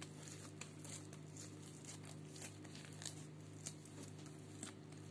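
Faint soft clicks and smacks of wet hands pulling and shaping a portion of risen yeast bread dough, over a steady low hum.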